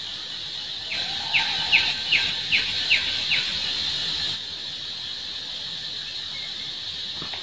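Steady high insect drone with a quick run of about seven short falling chirps around a second in; the drone thins out a little past the middle.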